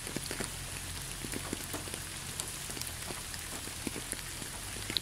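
Steady rain falling, an even hiss dotted with many small drop ticks, over a low steady hum.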